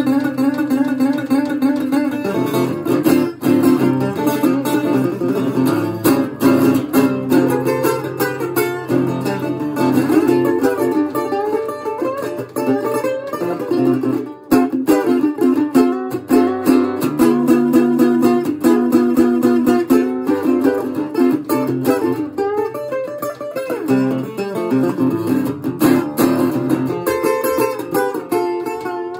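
Dobro Hound Dog M-14 metal-body resonator guitar played with fretting fingers, not a slide: a fast, unbroken stream of picked single-note blues runs with the bright, metallic ring of the resonator cone.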